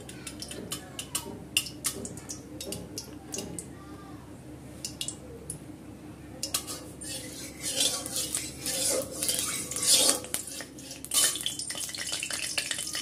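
A flat steel spatula scraping and clinking against a metal kadai as oil is spread around the pan. A few scattered clicks at first, then busier, louder scraping and tapping from about halfway through.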